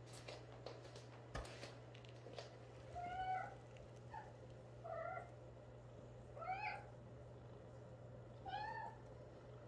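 Young kitten mewing: about five short, high cries over the back half, each rising and falling in pitch. A few soft clicks and rustles of handling come in the first couple of seconds.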